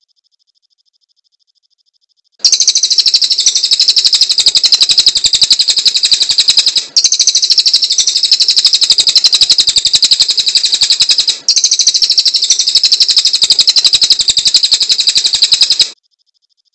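A cililin songbird singing a loud, very rapid chatter of high chirps, many to the second, that starts about two seconds in and runs on for some thirteen seconds with two brief breaks.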